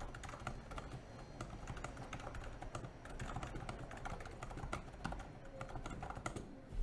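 Typing on a NIZ Plum 87 electro-capacitive keyboard: a dense, steady run of keystrokes at a quick typing pace.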